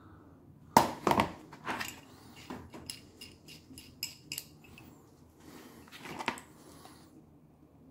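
Steel adjustable wrenches handled in gloved hands: a few sharp metal clicks and knocks, the loudest about a second in, with lighter ticking in between as one wrench is set down on the cutting mat and another picked up.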